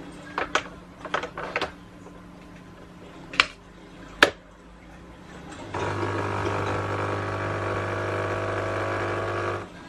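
Nescafé Dolce Gusto capsule coffee machine: a few light clicks and two sharp clicks as it is handled and set going, then its pump buzzes steadily for about four seconds while brewing the latte, and cuts off.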